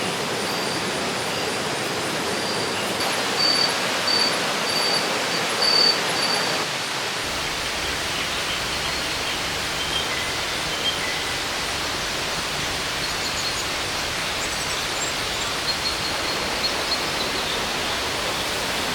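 Tropical river rushing steadily over rocks, a constant even roar of water. A thin, high call repeats through roughly the first six seconds, with a few faint chirps later.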